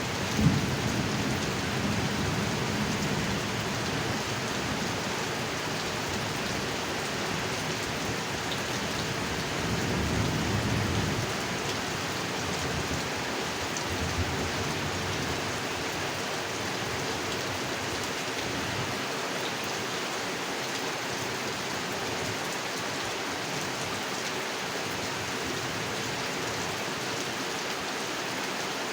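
Heavy rain falling steadily on a pond, with a sharp crack of thunder about half a second in and low thunder rumbles early on and again around ten seconds in.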